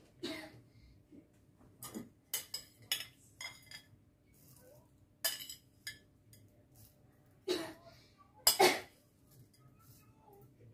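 Scattered clinks and scrapes of a metal spoon in a glass bowl of chocolate shavings and against a stainless-steel cake ring, the loudest pair about eight seconds in.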